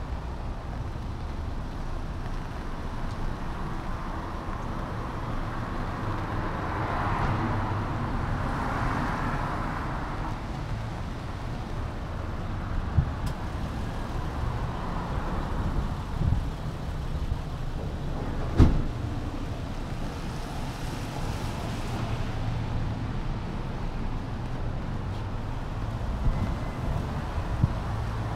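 Street traffic on a rain-wet road: cars passing, one swelling past a few seconds in, over a steady low rumble of wind on the microphone. A few sharp knocks, the loudest about two-thirds of the way through.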